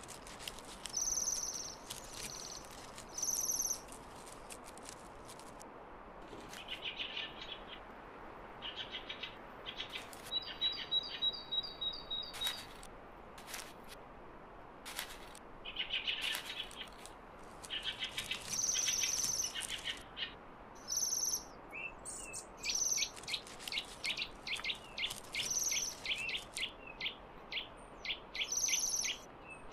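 Small songbirds calling in a winter wood: short high thin calls repeated every second or two, a quick trill about ten seconds in, and a fast run of short chattering notes, several a second, through the last seven seconds.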